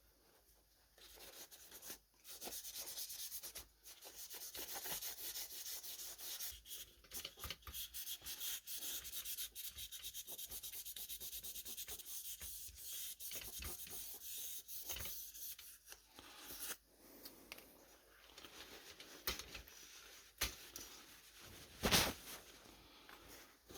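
1000-grit automotive wet sandpaper rubbed back and forth over a metal typewriter part, a fast scratchy sanding that is strongest through most of the first two-thirds, then lighter with a few small knocks and one sharp knock near the end.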